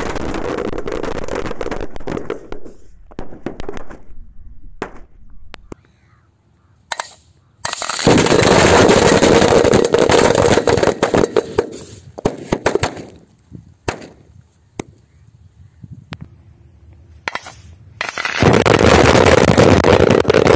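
A 1000-wala firecracker string going off packed inside a pressure cooker: long runs of rapid, dense crackling bangs. A lull with scattered single pops comes about 6 seconds in and again around 14 to 17 seconds, and dense crackling returns in between and near the end.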